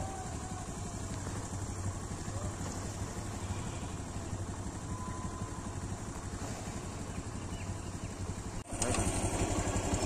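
An engine running steadily with an even low rumble, like a motorcycle idling. It drops out for an instant near the end and comes back louder.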